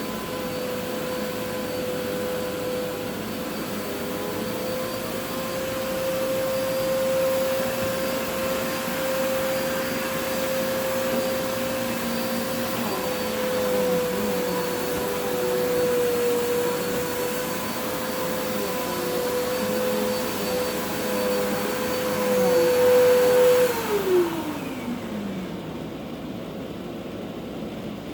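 Vacuum cleaner running with a steady motor whine and rushing air. Near the end it is switched off, and the whine falls in pitch as the motor spins down.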